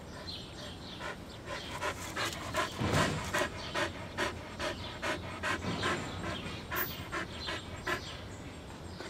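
Australian Shepherd dog panting quickly and rhythmically, about three breaths a second, loudest in the middle.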